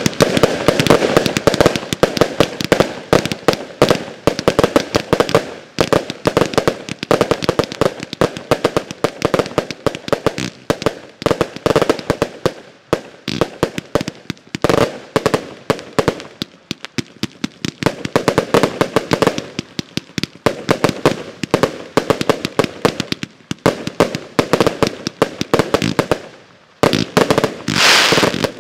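Two 85-shot consumer firework cakes going off together, a rapid, dense stream of launch thumps and bursts. There is a brief lull near the end, followed by a thick wash of crackling from the crackle stars.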